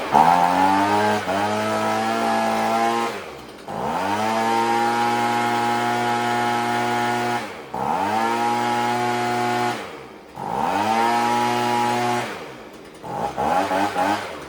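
Stihl BG50 leaf blower's small two-stroke engine running and revved to high speed, its carburetor freshly cleaned of old gummed fuel. The pitch falls away and climbs back three times, and sags and fades near the end.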